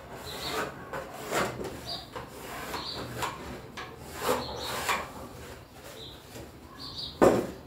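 Pencil scratching and rubbing on pine boards as cut lines are marked, with the boards and tools handled in between. A sharper wooden knock comes near the end.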